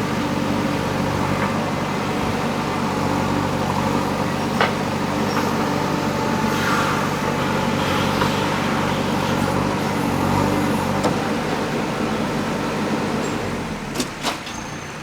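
JCB backhoe loader's diesel engine running steadily under work, easing off near the end, with a few sharp metallic knocks, two of them close together near the end.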